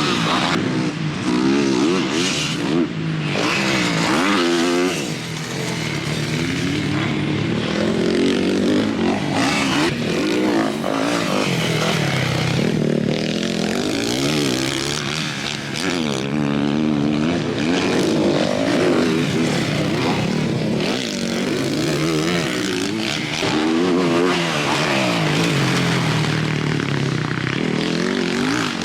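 Motocross bike engine being ridden hard around a dirt track, its pitch repeatedly rising under throttle and falling back as the rider shifts and brakes.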